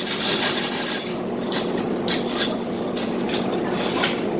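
Irregular metal clanks and rattles over a steady hum, from heavy equipment being moved and handled with a forklift.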